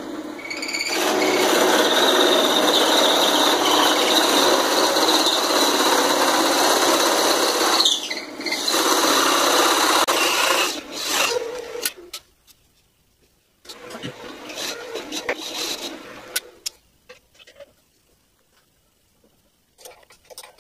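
Drill press boring into a wooden block with a carbide-tipped tile circle-cutting bit: a loud, steady rasping cut with a high squeal, broken briefly partway through, for about ten seconds. The cutting stops about twelve seconds in, and a few scattered clicks and knocks follow.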